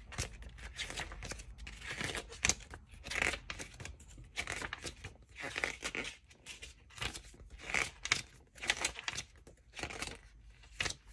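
Pages of a thin paper rulebook booklet being flipped quickly one after another. Each turn is a short papery swish, coming irregularly about every half second to a second.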